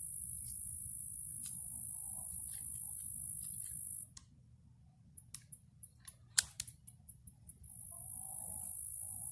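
A run of small, sharp metallic clicks, one much louder than the rest, from a .38 Special revolver and its speed loader being worked while the cartridges are loaded. They fall in a gap in a steady high-pitched hiss that stops abruptly about four seconds in and comes back near the end.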